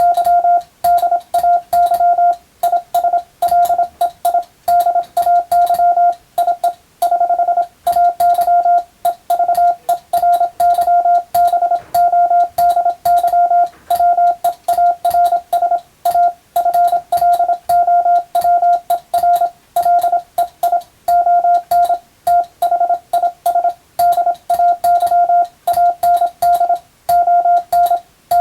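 Morse code (CW) sent by hand on a telegraph key: one steady beeping tone keyed rapidly on and off in dots and dashes, with short gaps between characters and words, and a light click at each keying.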